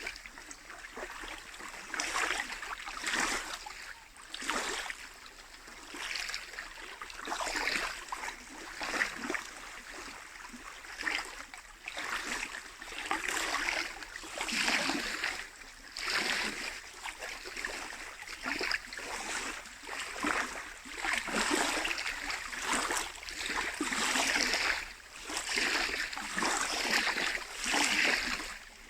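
Small lake waves lapping and splashing at the shore, in irregular swells every second or two.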